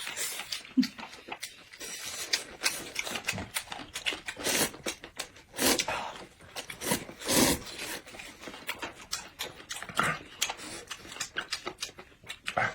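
Close-miked eating sounds: wet chewing and lip smacking in quick, irregular clicks, with a few longer, louder mouth noises.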